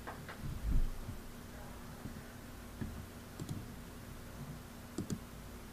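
A few scattered light clicks and taps as game cards and a calculator are handled on a tabletop, over a faint steady room hum.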